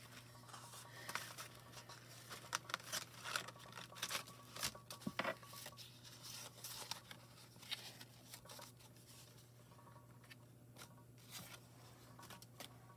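Paper and cardstock being handled and placed: scattered rustles, light taps and small clicks, irregular and mostly in the first half, over a low steady hum.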